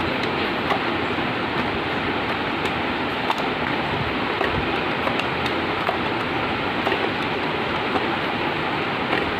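Steady rushing hiss, even and unbroken, with a few faint clicks.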